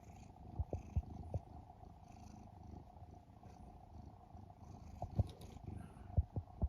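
Domestic cat purring in a continuous low rumble, with a few brief knocks, the loudest about a second in and again near the end.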